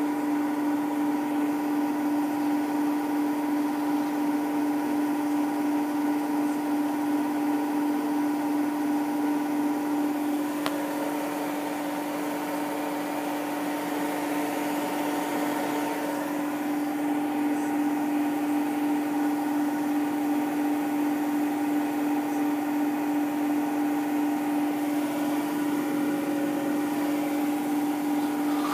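Indesit Innex BWE91484 washing machine in its final spin at full speed, set to 1400 rpm: a steady motor whine over a constant rushing noise, dipping slightly in loudness in the middle.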